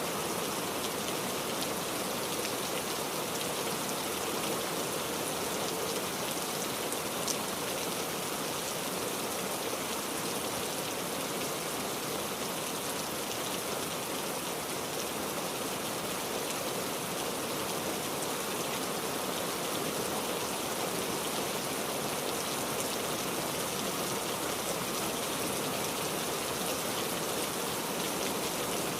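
Steady rain falling, an even dense hiss of raindrops with a single sharper drop-like click about seven seconds in.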